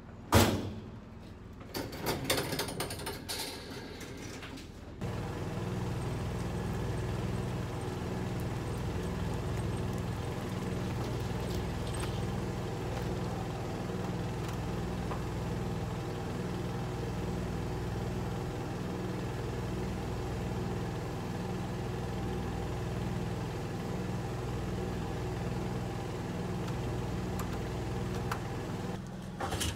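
A sharp knock about half a second in and a burst of clatter a couple of seconds later, then an engine idling, a steady low hum with a slow, regular pulse.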